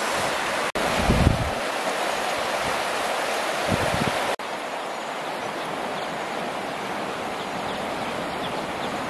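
Rushing river water, a steady hiss. Two brief low rumbles of wind on the microphone come about a second in and near four seconds.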